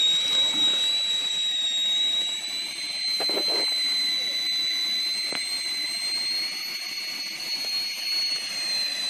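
Stovetop whistling kettle on a portable gas cartridge burner whistling at the boil. One steady high whistle over a steam hiss, rising slightly in pitch through the middle and easing back near the end.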